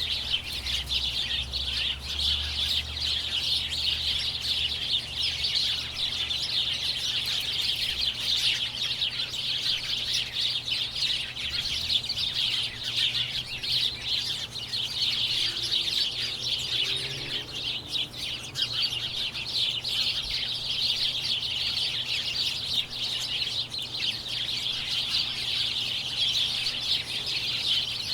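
A large flock of small birds chirping all at once: a dense, unbroken chatter of many overlapping high chirps and tweets.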